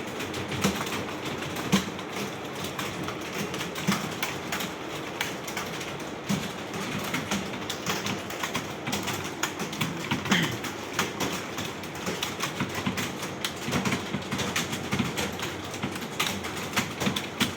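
A roomful of computer keyboards being typed on at once: a dense, continuous clatter of key clicks from many typists.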